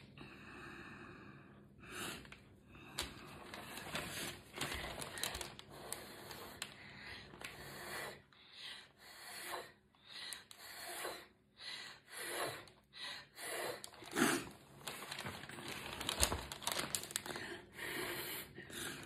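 A person blowing short puffs of breath onto wet acrylic paint, again and again, with breathing between the puffs.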